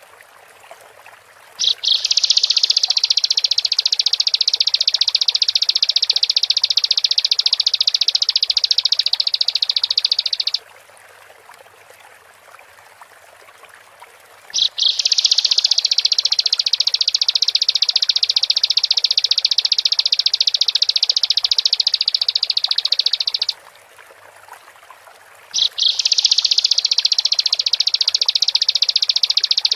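Bar-winged prinia (ciblek) singing long, rapid, high-pitched trills, three of them of about nine seconds each, separated by pauses of a few seconds. Each trill opens with a couple of quick clicks.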